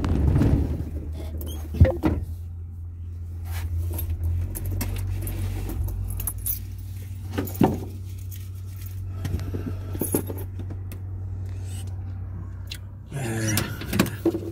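Inside a stationary car: a steady low engine hum, with a few sharp clicks and rattles, then denser handling and rustling noise near the end.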